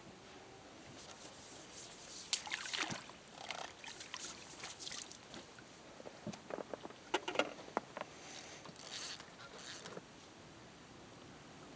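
Small splashes in lake water close to the shore, mixed with irregular rustling and clicking handling noise from feeder fishing tackle.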